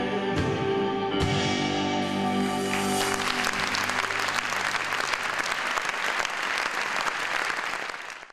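Two male voices with accompaniment hold the song's final chord, which ends about three seconds in; then an audience applauds until the sound cuts off suddenly.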